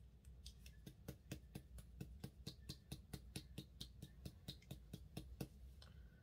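A small cosmetics bottle being shaken by hand, rattling in a fast, even run of faint clicks, about four or five a second, that stops about five and a half seconds in.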